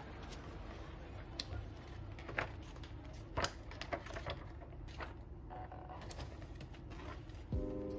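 Scattered light taps and clicks of small items being handled during an unboxing, over a faint steady hum. Background music comes back in near the end.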